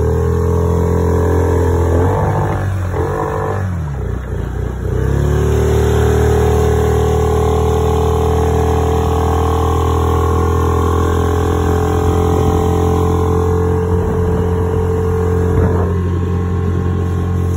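Yamaha F6 6 hp single-cylinder four-stroke outboard running steadily at speed, pushing a loaded inflatable boat. Its pitch dips and climbs back up between about two and five seconds in, then holds steady.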